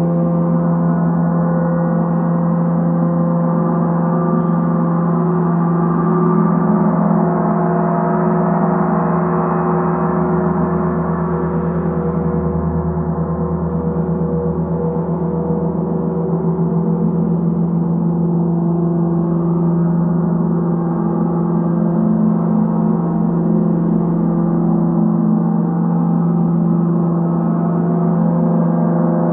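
Three gongs played with a mallet, their many overlapping tones blending into one steady, sustained wash with a strong low hum.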